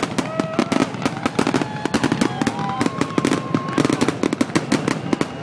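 Fireworks grand finale: a rapid, continuous barrage of shell bursts and crackling, many bangs a second with no pause.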